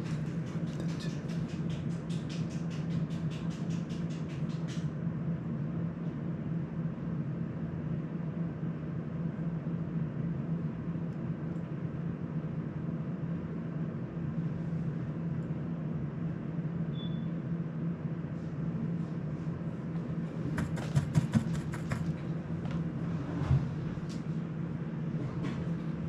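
Electric fan running with a steady hum. Light clicks and taps of small tools and parts on the workbench come through in the first few seconds and again as a few sharper taps about three-quarters of the way through.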